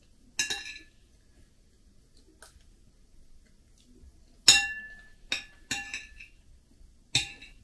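A metal spoon clinking against a ceramic plate while scooping cottage cheese: five short clinks, each ringing briefly, the loudest a little past halfway.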